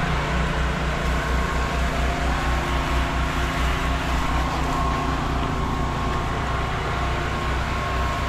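Pressure washer rig's engine and pump running steadily with an even low pulse, under a broad hiss of water spray.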